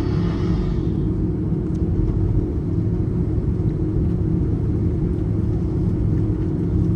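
Steady low rumble and hum inside an Airbus A330 passenger cabin, its engines running as the plane taxis for takeoff.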